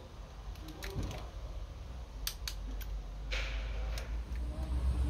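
Scattered light clicks and taps of a hand tool working on the Audi RS6's V8 engine during a spark plug change, with a short rustle a little past halfway, over a low workshop hum.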